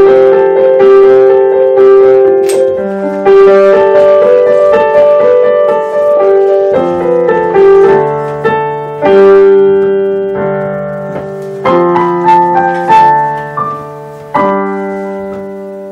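Digital piano playing a slow, gentle piece, marked to be played tranquilly and sweetly, in sustained chords and melody notes. Near the end a last chord is struck and left to ring and fade.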